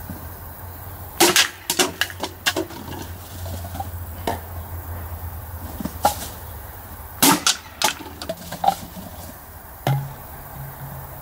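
Sharp clicks and taps of a kitchen knife's blade against a plastic beer bottle as the blade is lined up for a slash. The taps come in a quick cluster about a second in and again about seven seconds in, with single ones between.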